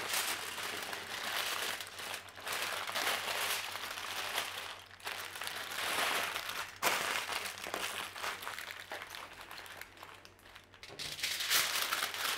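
Aluminium foil and parchment paper crinkling and rustling as hands fold and press them around a cake, in stretches with a few brief pauses.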